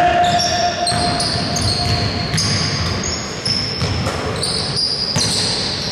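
Basketball being played on a wooden gym floor: sneakers squeaking in short high-pitched bursts and the ball bouncing, in a large echoing hall. A steady tone sounds for the first two seconds.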